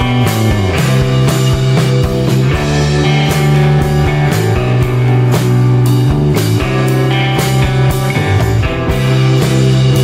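Music with a steady drum beat over long, held low notes.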